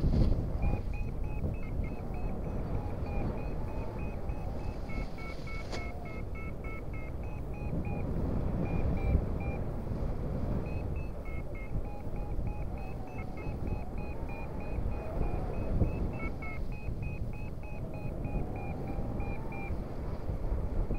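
Paragliding variometer beeping in quick, short high beeps, about four a second, the climb tone that signals the glider is rising in lift, with a short lull partway through. Under it, wind rushing over the microphone.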